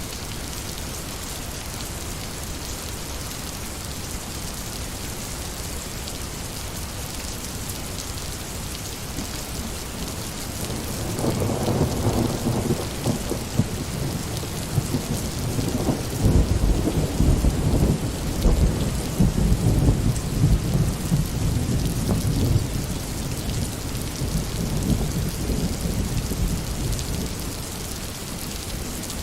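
Steady heavy rain hissing, with a roll of thunder building about a third of the way in, rumbling loudest in the middle and dying away near the end.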